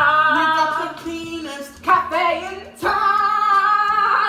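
A girl singing loudly in three long, drawn-out phrases with short breaks between them.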